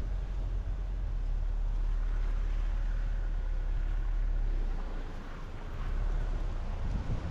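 Car driving on a highway: a steady rumble of tyres and engine, easing slightly about five seconds in before building again.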